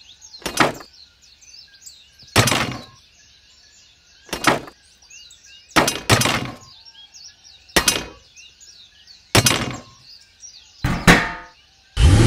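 About eight sharp knocks, one every second or two, each with a short ring-out, over birds chirping steadily in the background.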